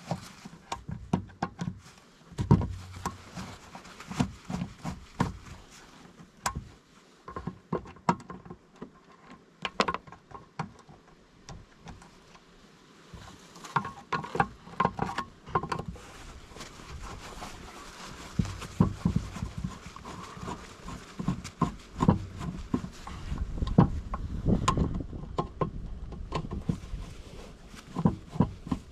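Irregular clicks, knocks and rattles of hands handling tools and parts, with a stretch of low rumbling and heavier knocks about two-thirds of the way through.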